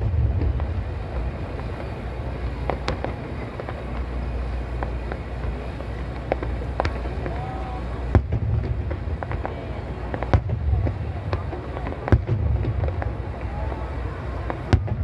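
Aerial firework shells bursting overhead: a string of sharp bangs a second or more apart over a continuous low rumble, with people talking in the crowd.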